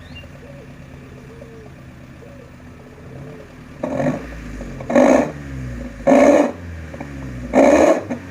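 Petrol car engine breathing through an aftermarket SUOS two-outlet 'ngorok basah' (wet growl) exhaust muffler. It idles steadily, then about four seconds in it is revved in four short throttle blips, each falling back to idle.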